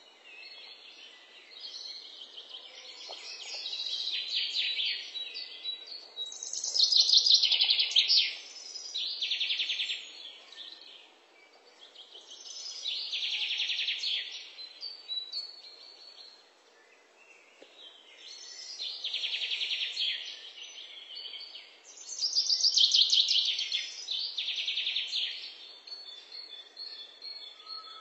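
Small birds singing in rapid trilled phrases of one to two seconds each, repeating every few seconds, with a lull of a few seconds past the middle.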